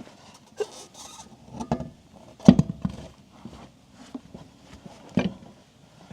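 Metal clanks and knocks of tools and wheel parts being handled during work on a pickup's front wheel hub. There are about four separate knocks; the loudest, about two and a half seconds in, leaves a short metallic ring.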